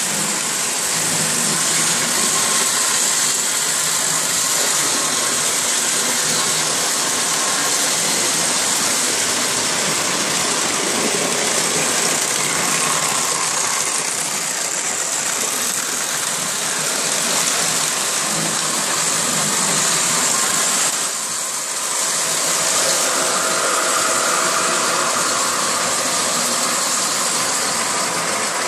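Lionel O-gauge model trains running on the layout: a steady mechanical rumble and hiss of motors and wheels on track, dipping briefly about three-quarters of the way through.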